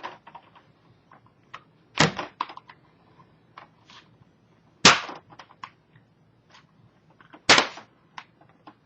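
Plastic clips of a laptop's screen bezel snapping loose as the frame is pried up: three loud sharp snaps about two and a half seconds apart, with lighter plastic clicks and ticks between them.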